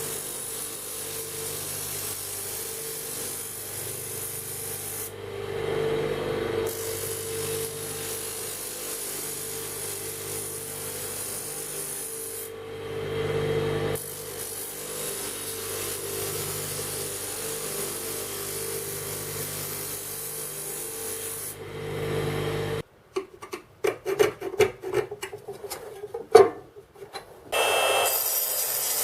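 An electric power tool runs steadily, swelling louder twice as it works the piece. About three-quarters of the way through it stops, and irregular knocks and scrapes follow. Near the end another steady tool sound starts, with a high whine.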